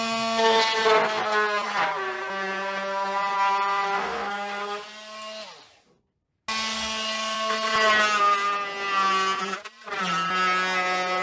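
Cordless oscillating multi-tool cutting a plastic hydrofoil fin: a steady high buzz that drops slightly in pitch about two seconds in as the blade bites. It stops abruptly about halfway, then runs again.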